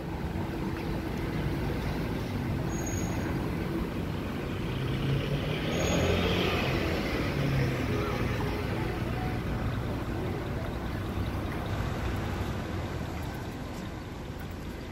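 Road traffic running steadily beside the pavement, the engines and tyres of passing cars. One vehicle passes close about six seconds in, the loudest moment, then the noise eases off.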